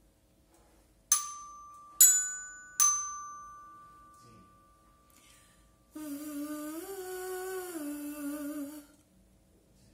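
A metal chime struck three times with a mallet in quick succession, each stroke ringing out and fading. A few seconds later a woman hums one note for about three seconds, her pitch rising in the middle and coming back down.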